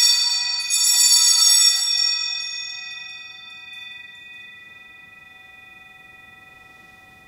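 Altar bell struck about a second in, over the ring of a stroke just before, then ringing on and slowly dying away over several seconds. It is rung at the elevation of the chalice, just after the words of consecration.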